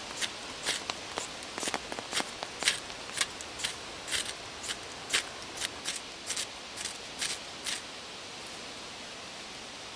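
A knife blade scraping in short, quick strokes against wood or a fire-steel, about twenty strokes at two or three a second, stopping about eight seconds in, while a feather stick is prepared to light a wood-gas stove.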